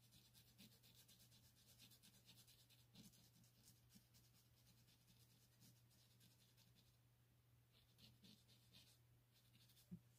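Faint, quick scratching of a pencil stroking over paper, in short runs with a brief lull about seven seconds in, over a steady low hum. A single sharp click comes near the end.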